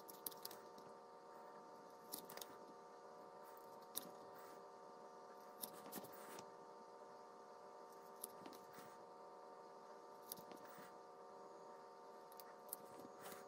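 Small scissors snipping through a paper label sheet: short, sharp snips at irregular intervals of one to two seconds, over a faint steady tone.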